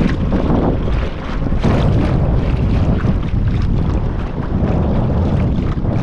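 Strong wind gusting over the microphone, a loud, steady rumble that swells and dips.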